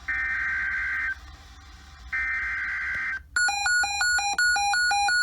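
Emergency Alert System SAME header: screechy digital data bursts about a second long at the start and about two seconds in, each followed by a pause. After a short break comes a rapid electronic beeping alert tone of several pitches, about two to three beeps a second, which marks the start of the alert.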